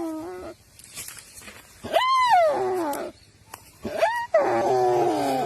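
A deer bawling in distress while Komodo dragons eat it alive: two long, loud, high calls that rise and then fall in pitch, about two seconds in and again near the end.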